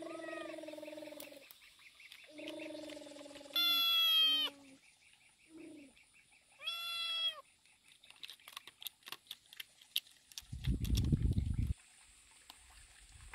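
Animal calls: several drawn-out pitched calls over the first half, the loudest about three and a half seconds in, then a run of quick clicks and a brief low rumble near the end.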